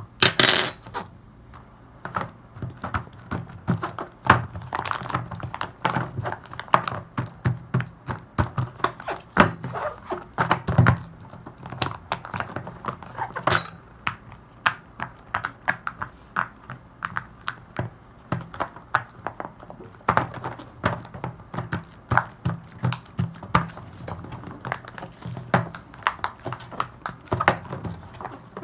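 Silicone pop-it fidget toy having its bubbles pressed one after another: a long, uneven series of soft pops, several a second.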